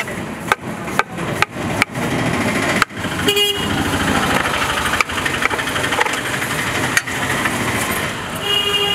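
Street traffic noise with a vehicle horn honking briefly about three seconds in and again near the end. Over the first few seconds, a run of sharp taps from a knife striking a muskmelon and the chopping block as it is peeled.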